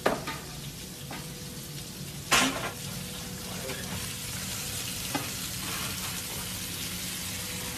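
Fish pieces and chopped onion frying in oil in a large steel stockpot: two loud hits near the start and about two seconds in, then a steady sizzle that grows a little stronger.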